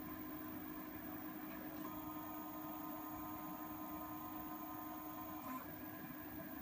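FirePick delta robot's stepper motors whining steadily as they drive the effector through a Z-probe calibration move. The whine starts about two seconds in and stops with a small click about three and a half seconds later.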